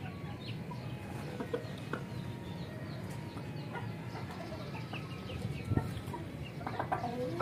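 Chickens clucking faintly, with scattered short clicks and small chirps over a steady low background hum.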